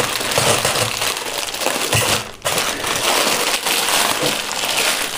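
Clear plastic bag crinkling and rustling as hands pull a folded jacket out of it, with a brief pause a little over two seconds in.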